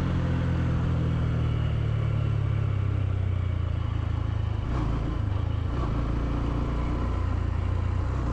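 Honda CB125F's 125cc single-cylinder four-stroke engine running under way, its note steady and then dropping lower about halfway through as the bike slows to make a turn at a junction.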